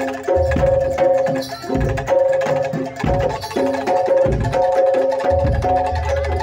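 Live Javanese gamelan music: a run of ringing gong-chime and metallophone notes over low, irregular kendang drum strokes.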